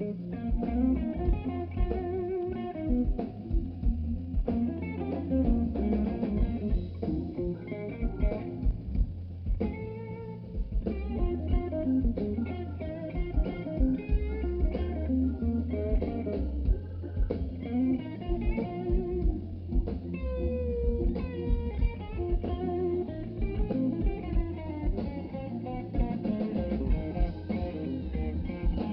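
Live blues band playing an instrumental passage: electric guitar lines with bent notes over bass guitar and a steady drum beat.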